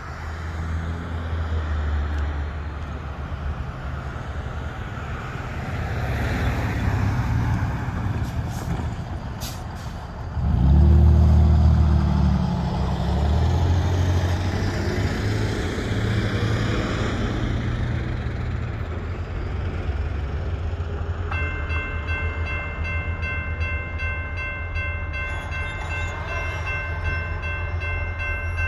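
Road traffic passing over a railroad grade crossing, with a heavy vehicle's engine loudest about ten seconds in. About 21 seconds in, the crossing's electronic warning bell starts ringing steadily, signalling an approaching train.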